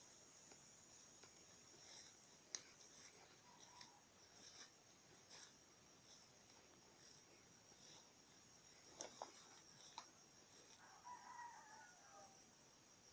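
Faint, steady high-pitched chirring of crickets or similar insects, with a distant rooster crowing once about eleven seconds in. A few faint clicks are scattered through.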